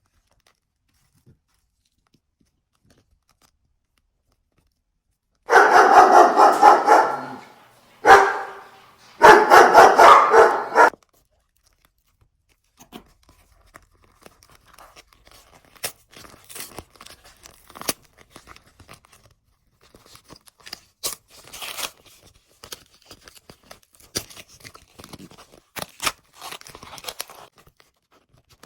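A dog barking in three quick, loud runs of rapid barks, then faint scattered crackling and crunching.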